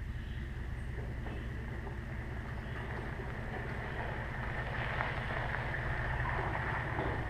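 Chevrolet Suburban towing a loaded trailer, its engine a steady low rumble that grows a little louder as it comes slowly up the driveway.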